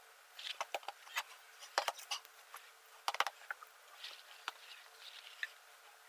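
Faint, scattered clicks and crackles of a hard plastic gel ice pack being squeezed and its screw cap handled, pressing trapped air out so the pack won't swell in the freezer.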